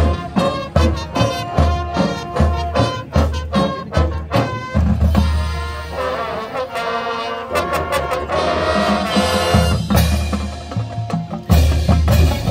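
Marching band playing, with brass and drums. Short punched chords come on drum hits for the first few seconds, then the playing turns more sustained, and a loud full-band accent lands near the end.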